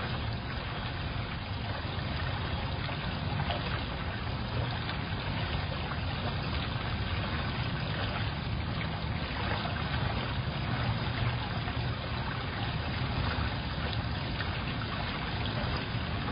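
Steady trickling water over a low rumble, heard through a security camera's small microphone with a dull, muffled top end.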